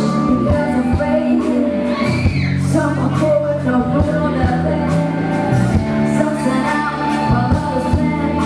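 A woman singing live into a handheld microphone over amplified backing music, with a steady bass line and regular drum hits.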